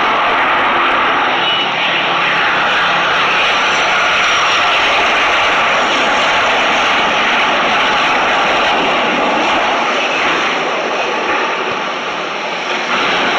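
Boeing 737-800 jet landing: a steady loud rush of its CFM56-7B turbofan engines with a faint high whine. The sound sags slightly near the end, then rises again just before it stops.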